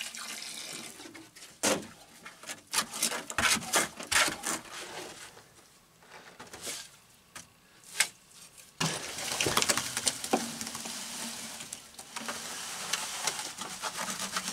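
Cement work with hand tools: a shovel scraping and knocking in a plastic bucket and against the ground, then, from about nine seconds, a steadier rough scraping and sloshing as wet cement is shoveled and poured around a manhole ring.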